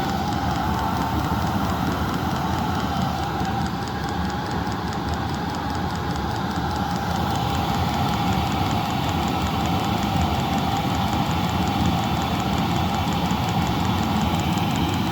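Chinese diesel air heater running steadily: a low rumble from the burner and combustion fan under a constant whine, with the fuel pump ticking at an even rhythm.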